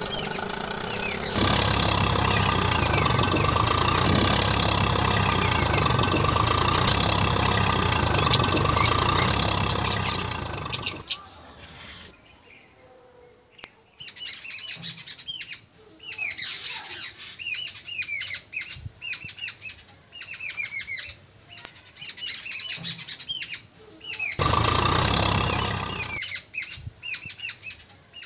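Small birds chirping rapidly, many quick downward-sweeping chirps, over a loud steady noise with a deep hum that cuts off suddenly about eleven seconds in and comes back briefly near the end.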